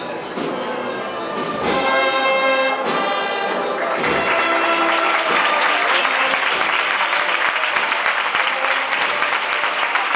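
A procession brass band playing, ending a phrase on a long held chord about two seconds in. From about four seconds the crowd breaks into applause that stays loud over the band's continuing playing.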